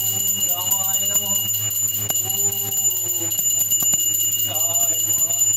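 A puja bell ringing steadily, with a man's voice chanting mantras in long, drawn-out phrases over it.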